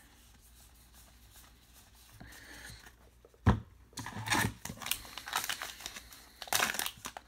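A sharp thump about three and a half seconds in, then a baseball card pack's wrapper crinkling and tearing in short spells as it is opened.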